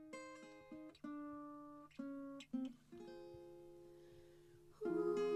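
Acoustic guitar picking single notes and chords that ring out one after another, then a louder strummed passage comes in near the end.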